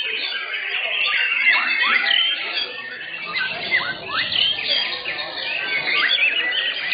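Many white-rumped shamas singing at once: a dense chorus of overlapping clear whistles and sharp rising and falling sweeps, with no pause.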